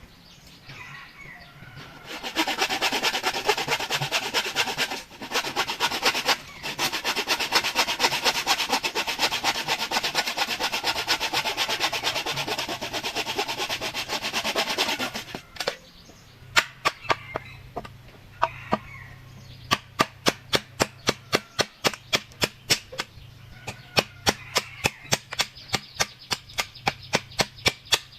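Hand work on bamboo: a long stretch of rapid rasping strokes, like sawing, broken once briefly, then a run of sharp knocks about two or three a second, like hammering or chopping.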